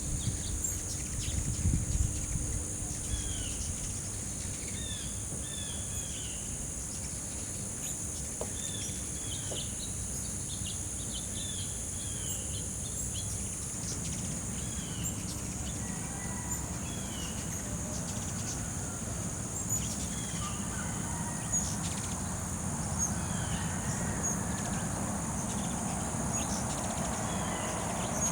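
Outdoor ambience: a steady high-pitched insect drone, with a bird's short falling chirps repeating about once a second, over a low rumble. A broader hiss builds in the second half.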